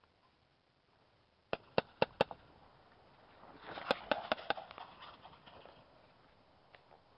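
Airsoft guns firing: four sharp snaps in quick succession about a second and a half in, then a second cluster of shots over a rustling swell a couple of seconds later.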